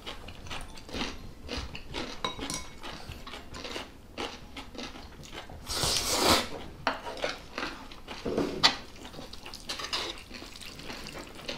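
Eating at the table: chopsticks and metal tongs clicking against bowls and a metal pan, with chewing and one louder slurp of chapagetti noodles about six seconds in.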